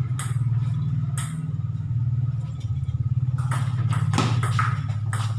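Table tennis ball clicking off paddles and table in a rally: two sharp hits about a second apart near the start, then a quicker run of hits in the second half. Under it runs a steady, louder, low mechanical hum like an idling motor.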